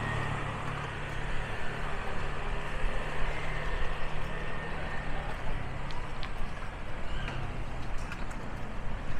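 Road traffic noise: a motor vehicle engine runs with a steady hum that fades out about halfway through, and a few short clicks come near the end.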